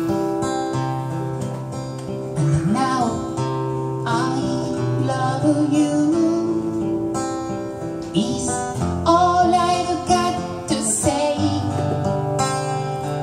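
A woman singing a quiet song to her own acoustic guitar. The guitar plays alone for the first couple of seconds, then her voice comes in, phrase by phrase, over the chords.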